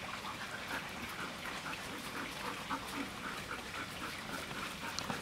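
Black long-haired shepherd dog giving faint short whines, several times over, against a steady outdoor background.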